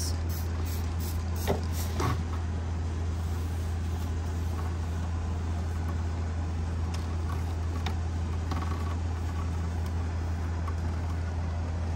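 Steady low engine hum, like a vehicle idling close by, running evenly throughout. Near the start come two short sprays from a hand spray bottle, then faint paper towel wiping on glass.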